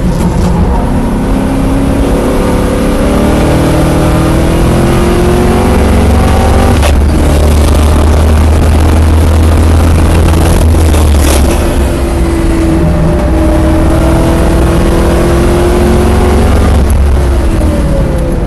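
Oldsmobile Cutlass G-body track car's engine heard from inside the cabin, pulling hard on a racing lap with its pitch climbing and a gear change about seven seconds in. The note drops off around eleven seconds in, climbs again, then falls near the end as the car slows for a corner.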